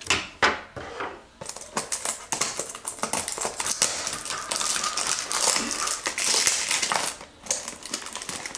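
Packaging being torn and crinkled: a cardboard blind box and the plastic wrapping around the vinyl figure inside are pulled open, making a dense run of crackling with many small sharp ticks.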